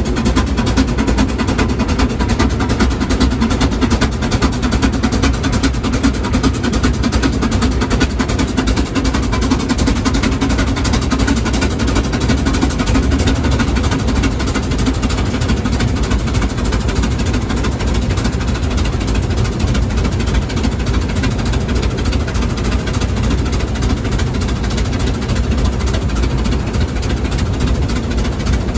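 Steam road locomotive running under way, heard from its footplate: a steady, dense mechanical rumble of the engine and running gear.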